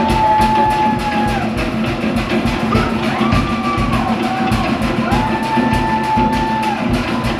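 Polynesian show music for a fire knife dance: fast, driving drumming under long held sung notes that slide up into and down out of each note.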